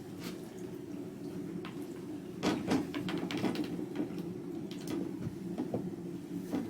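A steady low hum, with a cluster of clicks and knocks about two and a half seconds in and a few scattered knocks later.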